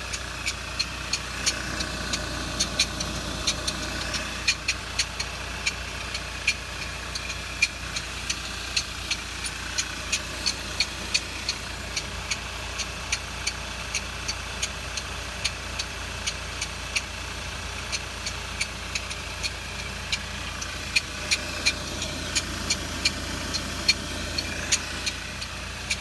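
Seven-speed DSG gearbox with a squeaking input-shaft needle bearing: quick, uneven metallic squeaks, a few a second, over a steadily running engine. The squeak is the sign of a failing input-shaft needle bearing.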